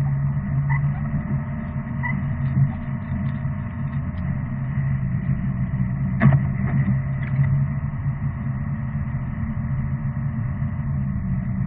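Steady low drone of a vehicle on the move, with one sharp click about six seconds in.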